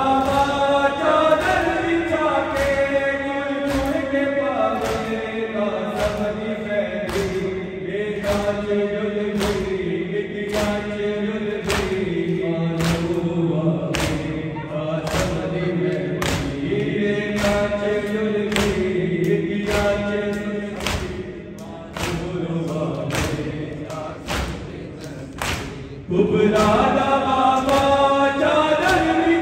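A nauha chanted by many male voices, beaten out by the congregation's rhythmic matam: open hands striking chests in unison, about three strikes every two seconds. The chanting is full at first, thins somewhat past the middle, and swells back to full chorus near the end.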